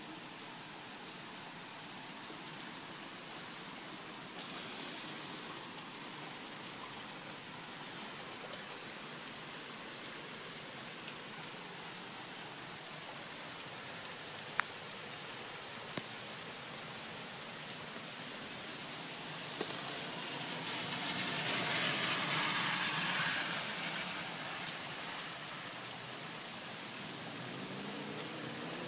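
Steady rain falling and pattering on surfaces, with a few sharp single drip clicks. About two-thirds through, a louder rush swells up and fades away over a few seconds.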